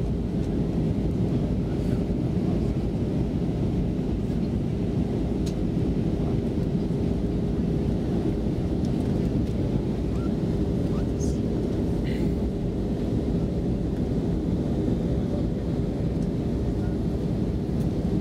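Airbus A320 cabin noise in flight: the steady, even rush of engines and airflow, with a faint constant hum running through it.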